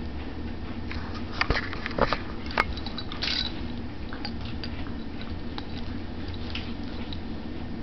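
Two dogs play-wrestling and mouthing each other, with scattered soft snaps and clicks of teeth and jaws, the loudest cluster around one and a half to two and a half seconds in.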